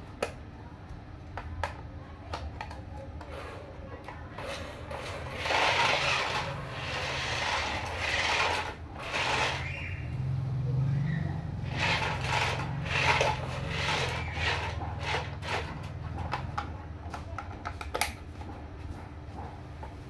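Toy RC dump truck's small electric drive motor and plastic gearbox whirring in stop-start runs as it drives over concrete, with a low hum under a noisier grinding, plus a few sharp clicks.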